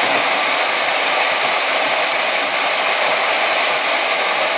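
Steady rush of air past the canopy of a Schleicher ASK 21 glider in gliding flight, an even hiss with no engine.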